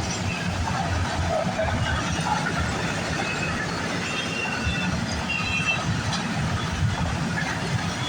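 Freight cars of a CN freight train rolling past, with a steady rumble of wheels on rail and brief faint wheel squeal about midway.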